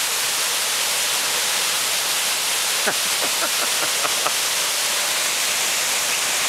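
Steady rushing of a tall waterfall plunging into the pool at its foot. About three seconds in, a quick run of about six short chirps that fall steeply in pitch.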